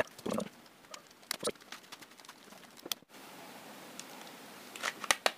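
Scattered light clicks and taps of a small screwdriver and hands on a Jio Phone's plastic casing as it is worked open. A stretch of faint steady hiss comes about three seconds in, and more sharp clicks follow near the end.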